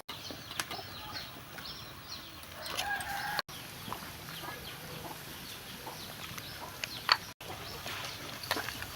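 Chickens clucking and chirping in the background, with a single sharp click about seven seconds in.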